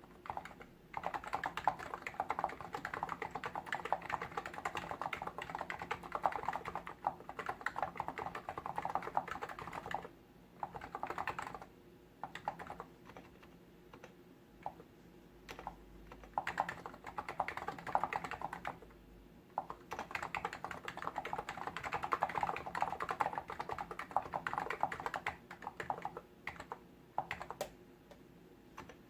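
Rapid typing on a Hansung GTune CHL8 tenkeyless keyboard with electro-capacitive (contactless) switches. The keystrokes come in runs of several seconds with a few short pauses between them, then become sparse near the end.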